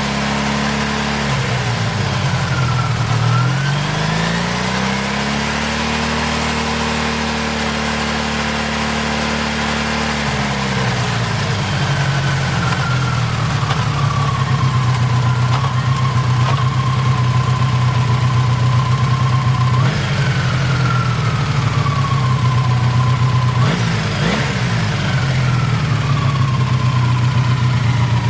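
Honda VF750F's liquid-cooled V4 engine running: revs rise to a held fast idle for several seconds, drop back to a steady idle, then are blipped briefly twice, with a thin whine that sinks in pitch as the revs fall after each blip. The engine has an abnormal noise.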